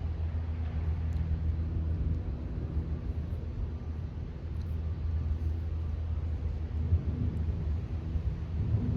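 Wind buffeting the microphone outdoors: a continuous low rumble that swells and dips.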